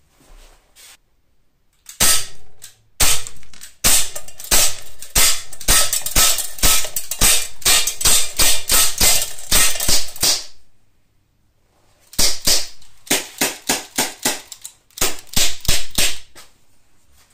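Umarex Glock 19 CO2 pistol firing 4.5 mm steel BBs into a steel pellet trap: two single shots, then long rapid strings of about two to three shots a second with a short metallic ring after each. There is a pause of about a second and a half before the last two strings. The CO2 cartridge is near its end, and the last BBs are weaker.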